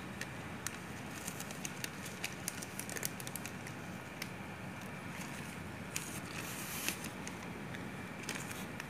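Thin plastic wrapper of a napkin pack crinkling in irregular little crackles as a hand rummages inside it, over a steady low hum.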